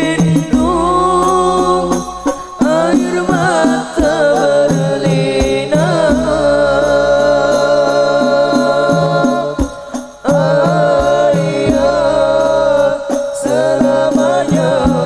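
Young male voices singing an Islamic devotional song together, holding long wavering notes over a steady percussion beat; the voices break off briefly about ten seconds in and then come back.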